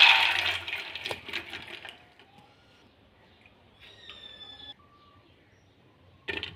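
Dry split chickpeas (chana dal) pouring into a metal pot, a dense rattle that fades out over the first two seconds. About six seconds in, green chillies drop onto the dal with a short clatter.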